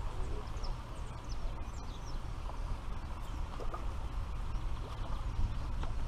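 Wind rumbling on the microphone outdoors, with faint bird chirps scattered through it.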